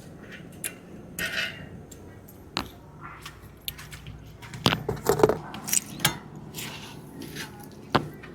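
Metal hand tools and outboard prop hardware (nuts and washers) clinking and knocking as they are handled, in irregular sharp clicks with a cluster of louder knocks about five seconds in and one sharp click near the end.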